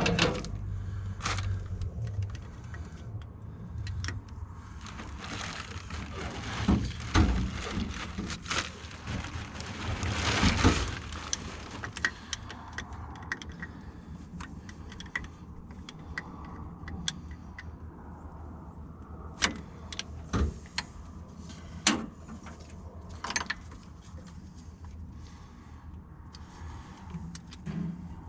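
Hand tools and metal fittings clinking, tapping and scraping while sensors are fitted back onto the Cat 312 excavator's hydraulic lines with a wrench. The clatter is busiest and loudest about halfway through, with scattered single clinks later.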